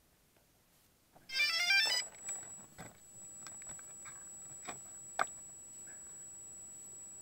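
DJI Phantom quadcopter powering up: a quick run of electronic start-up beeps, then a steady thin high whine. A few sharp clicks follow, the loudest about five seconds in.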